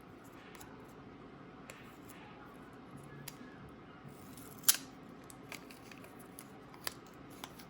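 Scattered small clicks and taps from handling a power adapter and its packaging, one sharper click just past halfway.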